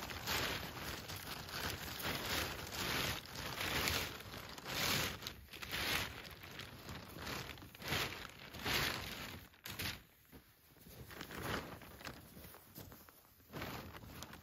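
A plastic tarp rustling and crinkling in irregular bursts as it is handled, growing quieter and sparser after about ten seconds.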